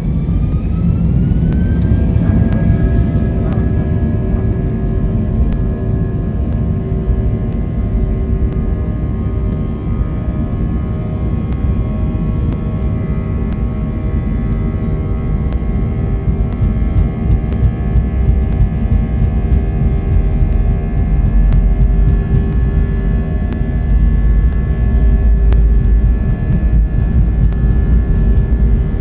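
Airbus A320-200 jet engines spooling up to takeoff thrust, heard from inside the cabin: a whine that rises over the first two seconds, then holds steady over a heavy low rumble from the takeoff roll. The rumble grows louder near the end as the aircraft speeds down the runway.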